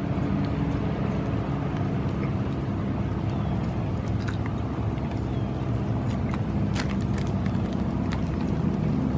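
An engine running steadily at idle, a constant low hum with a few faint clicks over it.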